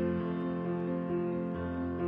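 Soft background music: gentle sustained instrumental notes.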